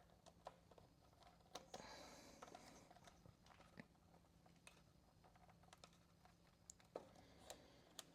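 Near silence with scattered faint clicks and a short rustle about two seconds in: light handling of small parts and tools.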